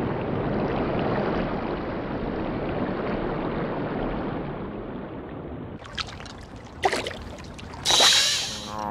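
Cartoon underwater sound effect: a muffled watery rush that slowly fades over about five seconds. Then come a few short, sharp water sounds, the loudest and longest about a second before the end.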